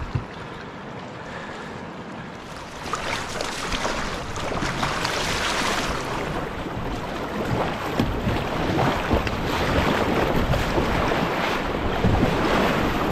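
Rushing whitewater of a river rapid, with water splashing against the canoe and paddle strokes. It gets louder a couple of seconds in and again about two-thirds of the way through as the canoe runs into the rough water.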